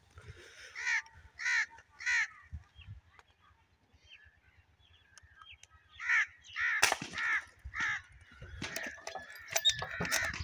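A crow cawing: three harsh caws in quick succession about a second in, then a run of four or five more from about six seconds. A single sharp crack sounds among the later caws, and light clicks and rustling follow near the end.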